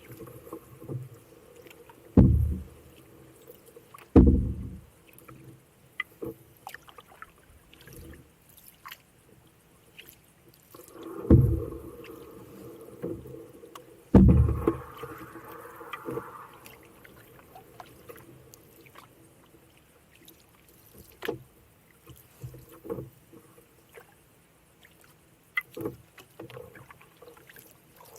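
Canoe being paddled: strong, low paddle strokes through the water a few seconds apart in the first half, then quieter strokes, with small clicks and knocks between.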